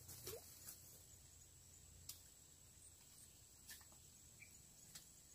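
Near silence: faint outdoor ambience with a few scattered faint clicks.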